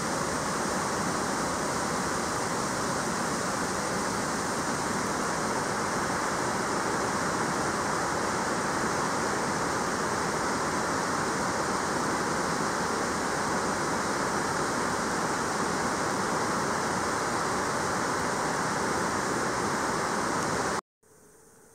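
A steady, even rushing noise that cuts off suddenly near the end, leaving only a faint hum.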